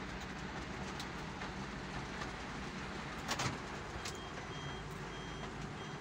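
Heavy monsoon rain and road noise heard from inside a vehicle's cabin, a steady hiss with a sharp knock about halfway through. Faint repeating high beeps come in near the end.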